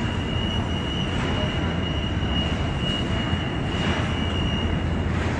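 Steady low rumble of construction-site and city noise, with a thin high whine held for about five seconds that cuts off near the end.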